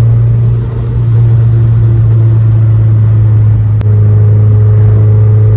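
Mazdaspeed 3's turbocharged 2.3 L four-cylinder heard from inside the cabin while driving, a loud steady drone with a brief click and dip a little under four seconds in. It runs smoothly on a test drive after work on a cylinder 3 misfire, with no stumble, which the driver judges feels right.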